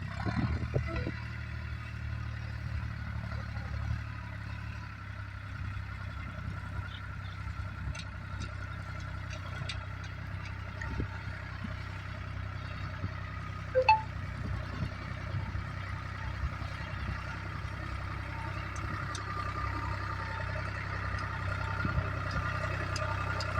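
A vehicle engine idling steadily, with its low hum growing a little louder near the end. A brief ringing clink comes about halfway through.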